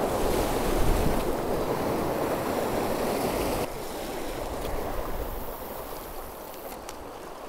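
Sea waves washing and breaking against shore rocks, with wind on the microphone; the rush drops somewhat in level about halfway through.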